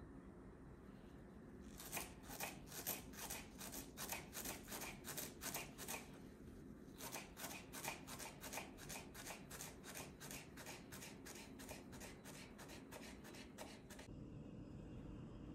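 Kitchen knife chopping fresh dill on a bamboo cutting board: a quick, even run of taps, about four a second, starting about two seconds in, with a short break near the middle, and stopping shortly before the end.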